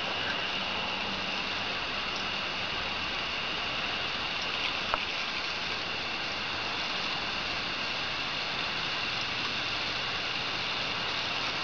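Steady hissing noise with one faint click about five seconds in.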